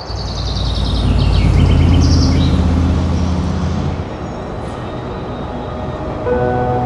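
A loud deep rumble that swells over the first two seconds and eases off about four seconds in, with a high shimmer sliding downward over it; steady music tones come in near the end.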